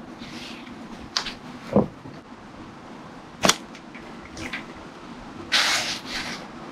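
A handful of sharp clicks and knocks, spaced out, followed by a short rustling swish near the end: a carbon fishing pole and its tackle being handled.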